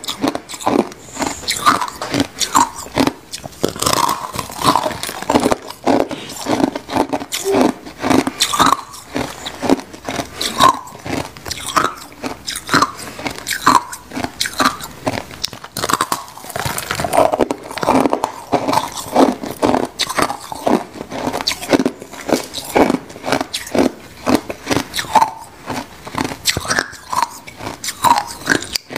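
Biting and chewing a frozen block of white crushed ice: an unbroken, irregular run of sharp crunches and cracks as the ice breaks between the teeth.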